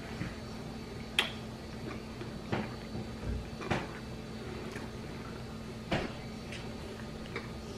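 A few sharp clicks and taps, spaced a second or two apart, over a steady low hum.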